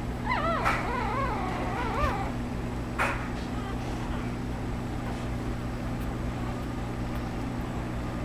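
Standard poodle whining in a high, wavering voice for about two seconds near the start, over a steady low hum; a single sharp click about three seconds in.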